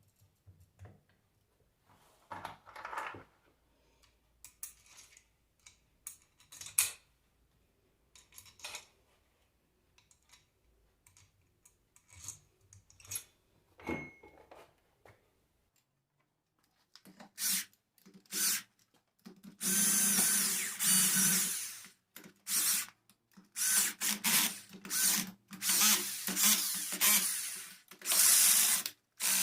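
Light clicks and knocks of small metal parts being handled, then, from a little past halfway, a power drill-driver running in repeated short start-stop bursts.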